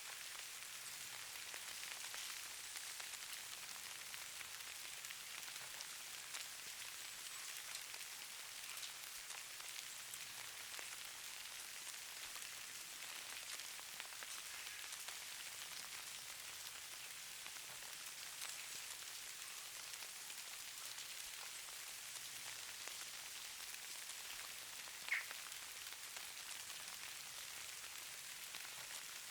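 Steady fine hiss of light precipitation pattering on surfaces, with faint scattered ticks through it. One brief, sharper tick stands out near the end.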